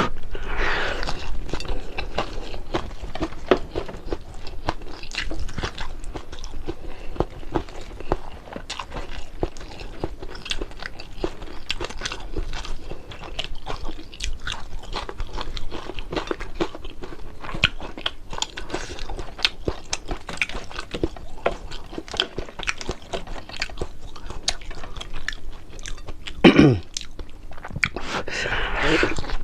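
Close-up chewing and crunching of crispy fried fish and rice, a dense run of irregular crackles and clicks with the mouth working steadily. Near the end one brief sound falls sharply in pitch.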